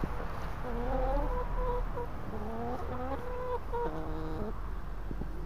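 Several hens calling, one drawn-out, slightly rising call after another from about a second in, some overlapping.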